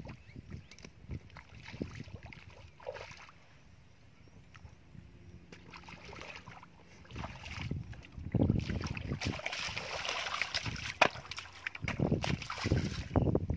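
Bare feet wading through shallow muddy water, with irregular splashing and sloshing that grows busier and louder in the second half.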